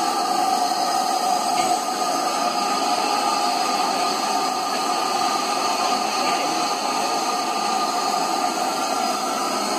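LNER B1 class 4-6-0 steam locomotive 61264 standing at a platform with steam hissing steadily from it.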